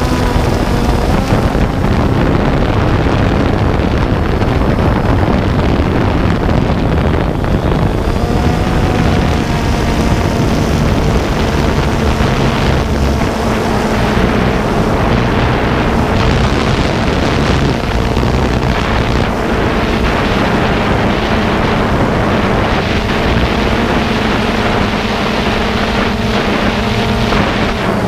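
Motor and propeller of a camera-carrying radio-controlled aircraft droning steadily in flight, its pitch sinking slowly, under heavy wind rush on the microphone.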